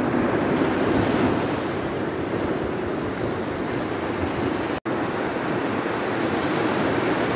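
Small surf breaking and washing on a sandy beach, a steady rushing mixed with wind on the microphone. The sound cuts out completely for an instant a little under five seconds in.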